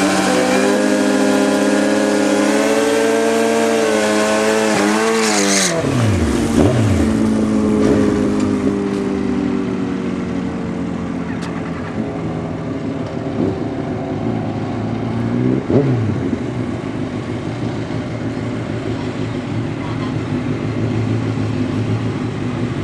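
Suzuki Hayabusa inline-four held at high revs during a burnout, the rear tyre spinning and squealing, for about six seconds. Then the revs drop sharply and the engine runs at low revs, with a brief blip of the throttle later on.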